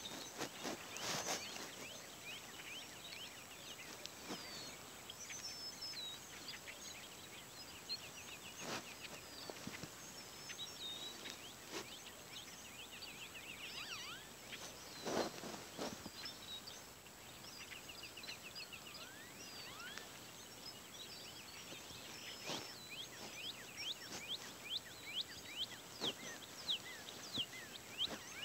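Bare feet stepping through dry grass, each step a brief crackling rustle, the steps coming quicker near the end. Small birds chirp and trill in the background throughout.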